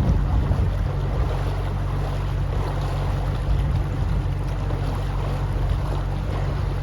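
Canal boat's engine running at a steady speed while under way, a low even drone, with wind noise on the microphone over it.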